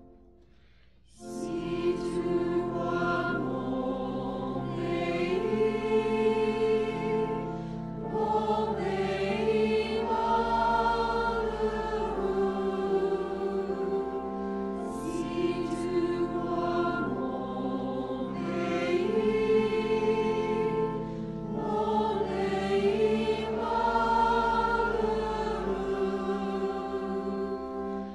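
Choral music: a choir singing slow, sustained chords over held bass notes, beginning about a second in after a brief hush.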